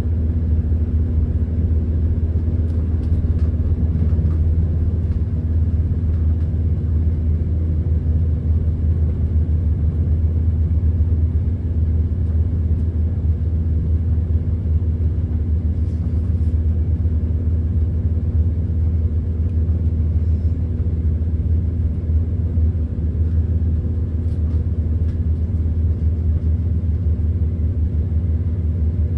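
Steady low rumble inside a Class 170 Turbostar diesel multiple unit on the move, from its underfloor diesel engines and wheels on the rails, with a constant engine drone.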